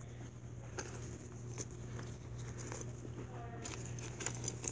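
Faint rustling and small clicks of hands handling and opening a small black fabric drawstring pouch, over a steady low hum.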